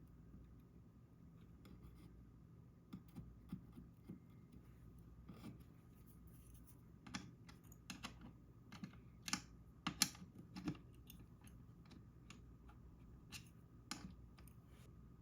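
Clicks and clacks from a Royal Kludge RK84 mechanical keyboard with brown switches: a scattered, irregular run of single key or keycap strokes, bunched most thickly near the middle, over a faint steady hum.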